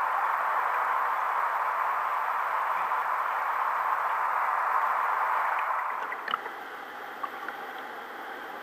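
Water rushing and gurgling along the hull of a sea kayak moving under sail, a steady hiss that drops away about six seconds in, leaving a quieter wash with a few faint ticks.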